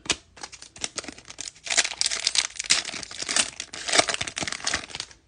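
Trading cards and their plastic or foil packaging being handled and crinkling. It starts as scattered small clicks and turns into dense crackling about two seconds in.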